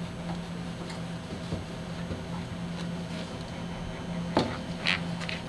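Gloved hands and a long knife handling a giant sliced castella cake: faint taps and soft brushing over a steady low hum, with a sharper knock about four seconds in and a couple of brief swishes just after.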